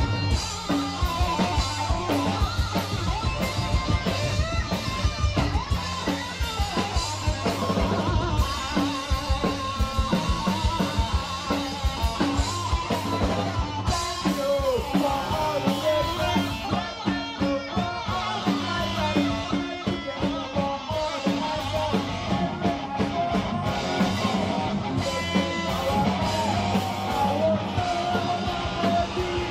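Skate punk band playing live: distorted electric guitars and a fast drum kit with cymbals, with a singer's voice over them.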